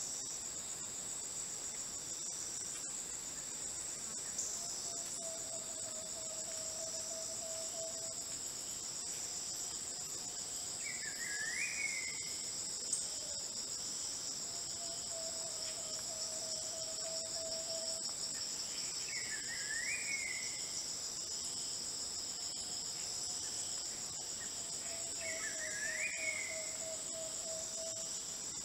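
Steady, high-pitched drone of rainforest insects, with a fast pulsing in it. Through it, two other calls come three times each: a long level whistle of about two seconds, and a short rising-and-falling note.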